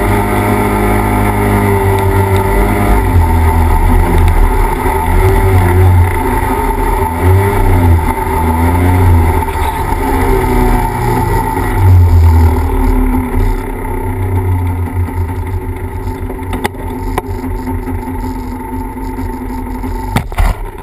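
Off-road vehicle engine running under load in sand, its pitch rising and falling as the throttle is worked, then easing to a lower level for the last several seconds.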